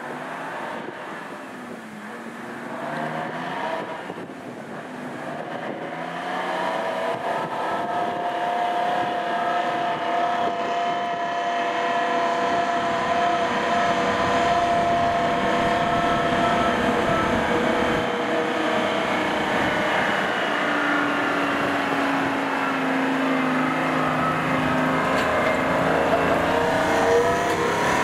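Vintage semi-trailer truck's engine pulling away under load, its revs rising and falling as it works through the gears, growing louder as the truck climbs toward and past the listener.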